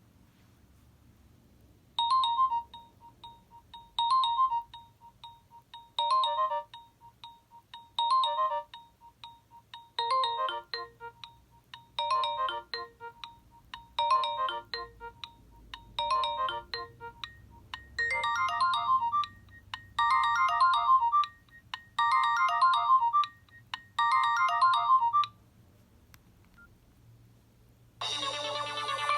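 Nokia 6681 mobile phone playing one of its built-in ringtones through its loudspeaker: a short electronic phrase repeated about every two seconds, some twelve times, with the last few repeats fuller. After a pause of a few seconds, a different, denser ringtone starts near the end.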